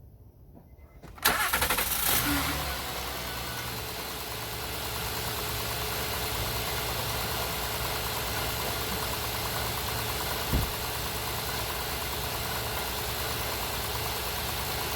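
2011 Honda Pilot's 3.5-litre V6 cranking and starting about a second in, running briefly at raised revs, then settling to a steady idle. A short thump is heard near the ten-second mark.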